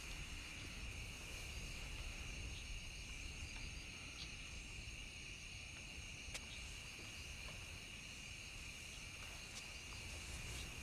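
Faint, steady chirring of insects in the soundtrack's ambience over a low rumble, with a single sharp click about six seconds in.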